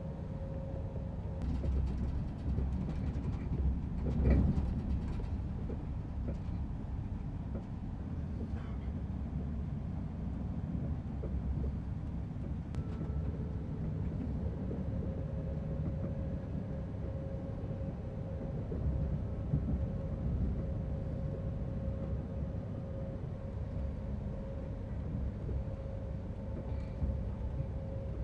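Running noise of a Swiss Astoro high-speed train under way, heard from inside: a steady low rumble with a faint steady whine that fades out about a second in and returns about halfway through. A brief knock stands out about four seconds in.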